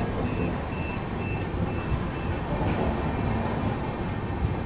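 Running noise of a passenger train heard from its open coach door as it rolls into a station: a steady rumble of wheels on rail with wind. A pulsing high beep repeats about three times a second through roughly the first second and a half.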